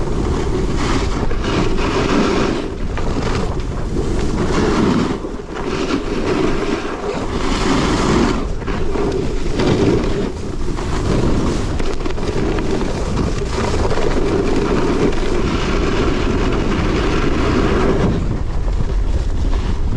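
Snowboard scraping and carving over groomed snow, picked up by a GoPro strapped low on the rider's front leg, with wind buffeting the microphone. The noise swells and eases with each turn.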